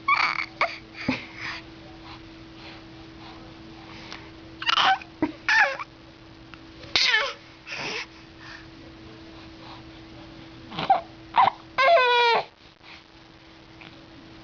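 A baby's short vocal noises, whimpering and crying sounds, in scattered bursts about half a second long with gaps between. Near the end comes a longer pitched squeal. A steady low hum runs underneath.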